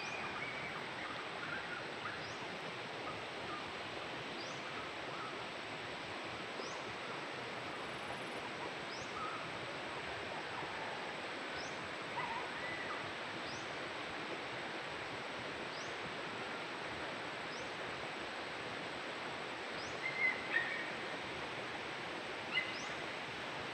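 Outdoor ambience of birds calling in tropical vegetation over a steady hiss: scattered faint calls, a short high rising chirp repeating about every second and a half, and a few louder calls near the end.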